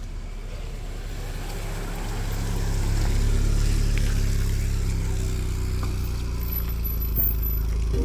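A road vehicle's engine running with road noise, a low drone that builds over the first three seconds and then holds steady.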